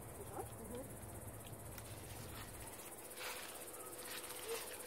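Crickets trilling steadily and high-pitched, with a few light scrapes and taps from the second half on as kittens' claws grip the tree bark.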